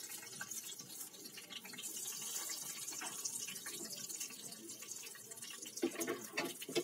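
Bay leaves and whole spices (cloves, cinnamon, green cardamom) sizzling in hot refined oil in a pot, a steady fine crackling hiss. A few short louder sounds come near the end.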